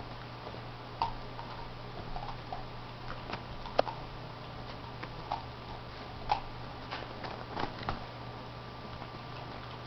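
Teething German shorthaired pointer puppy chewing an ice cube: irregular sharp clicks and cracks of teeth on ice, about eight of them, the loudest a little under four seconds in, over a steady low hum.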